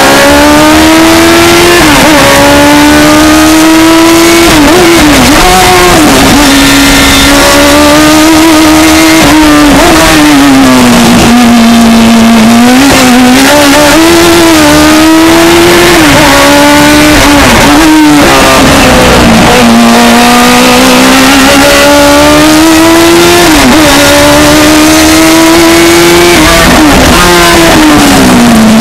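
Open-cockpit sports-prototype race car's engine heard from on board under hard acceleration. Its pitch climbs and drops sharply over and over as it changes gear and slows for bends, with quick up-and-down rev blips on the downshifts, over a steady rush of wind. Very loud throughout.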